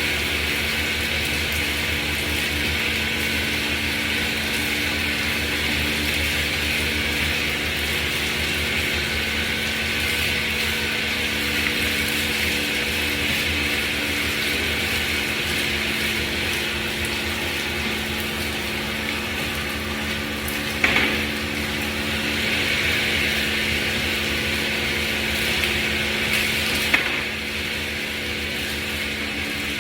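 Dairy milking plant running steadily during milking, a continuous mechanical hum and hiss from the vacuum pump and milking machinery. Two sharp knocks, about two-thirds of the way through and again near the end.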